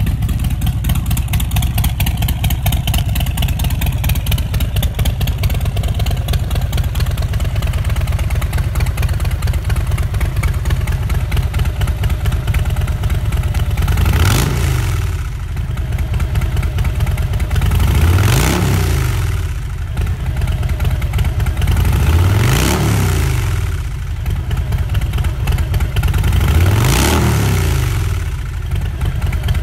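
2018 Harley-Davidson Breakout's Milwaukee-Eight V-twin running through a Vance & Hines exhaust: a steady idle, then four throttle blips in the second half, about four seconds apart, each rising and dropping back to idle.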